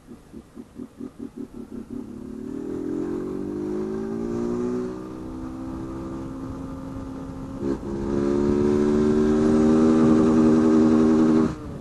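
Honda CG 160 Fan's single-cylinder four-stroke engine running with its intake hose removed. Slow separate firing pulses quicken and merge into a steady note that rises in pitch as the bike picks up speed. The note breaks briefly twice, and after the first break it runs louder.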